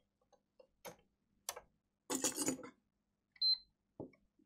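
Light clicks and knocks of parts and tools being handled on an opened PlayStation 5, then a single short, high beep about three and a half seconds in: the console's power-on beep as it starts up after a RAM chip replacement.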